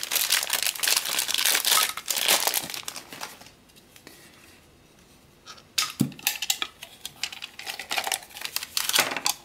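Thin clear plastic bag crinkling and rustling as the camera's dive housing is unwrapped, going quiet briefly in the middle. Then a few clicks and knocks of the hard plastic housing being handled and its latch worked.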